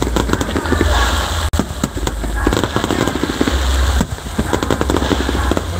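Fireworks display at full intensity, many shells and ground pieces going off together: a dense, continuous rapid crackling and popping over a low rumble of booms.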